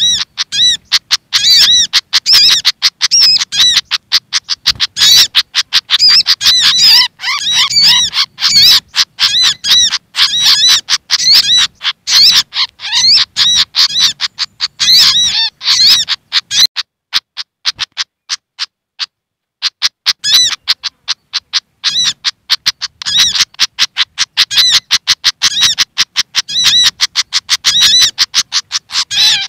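Bird-lure recording of agitated, distressed calls from a fantail (sikatan kipas) mixed with a spiderhunter (sogok ontong): fast, dense runs of sharp high chips and twittering notes, with a short break a little past the middle.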